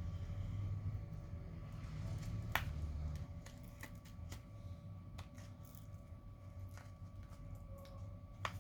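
Scattered small clicks and taps of hand tools and fingers handling a phone being taken apart, over a faint steady hum.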